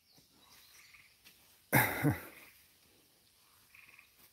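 A single short, harsh throat-clearing cough from a person close to the microphone, about two seconds in, with a brief low falling tail.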